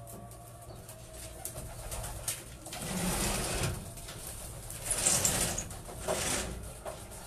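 Racing pigeons cooing in a loft, with a couple of louder noisy bursts about five and six seconds in.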